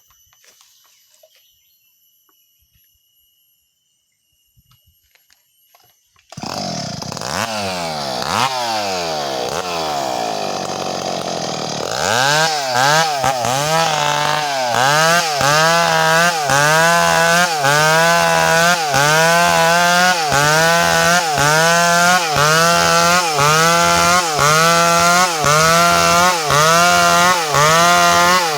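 Faint steady insect chirring for about six seconds, then a Stihl 382 two-stroke chainsaw starts up and runs, its engine note gliding up and down. From about twelve seconds in it runs at high revs cutting medang wood, its pitch rising and falling in an even rhythm a little over once a second as the chain loads in the cut and frees again.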